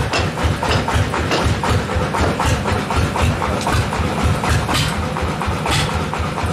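A heavy engine at a band sawmill idling with a steady rhythmic chug of about five beats a second, with scattered clicks and knocks over it.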